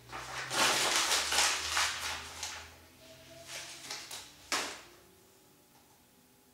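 A sheet of paper crumpled into a ball by hand: a dense crackling rustle for about two seconds, then a few shorter crinkles, the last one sharp.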